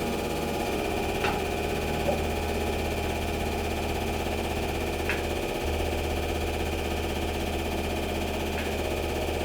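Hydraulic press's pump motor running with a steady hum, with a few short clicks while it presses an iPhone 7 Plus.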